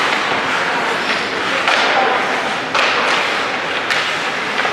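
Ice hockey play: skates scraping the ice under a steady hiss, with three sharp knocks about a second apart from sticks and puck striking the ice and boards.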